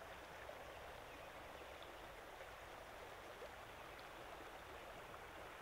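Faint, steady rush of a shallow trout stream running over rocks.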